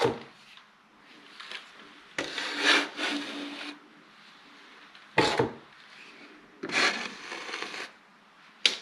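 A metal drywall blade scraping wet joint compound off a textured wall in several separate strokes, each about a second long, with shorter scrapes about five seconds in and near the end.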